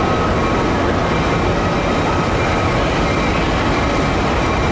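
Amtrak Superliner passenger cars rolling slowly past close by: a steady rumble of wheels on rail, with faint thin squealing tones.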